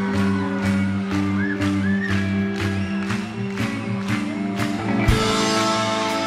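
Live rock band playing the instrumental opening of a song: guitar over sustained low notes with a steady beat of about three strokes a second.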